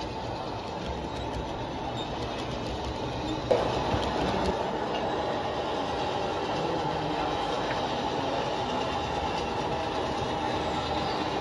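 G scale model freight train rolling on the track: a steady rumble of wheels on rails with clicking over the rail joints. About three and a half seconds in it jumps louder and stays there, as an approaching diesel locomotive and its cars run on the track.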